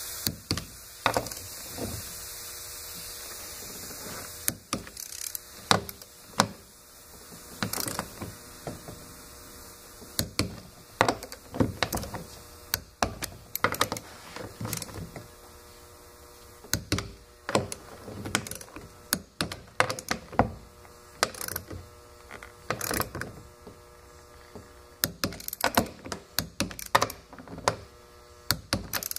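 Click-type torque wrench ratcheting and clicking in short irregular bursts as the nuts on a plastic fuel tank's sending-unit flange are tightened in a star pattern; the wrench's click marks a nut reaching its set torque of 20–24 ft-lbs. A steady low hum runs underneath.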